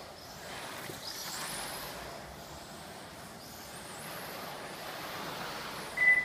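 Electric motor of a 1/12-scale modified-class RC pan car whining as it laps the track, rising and falling in pitch as it accelerates and brakes. A short high beep sounds near the end.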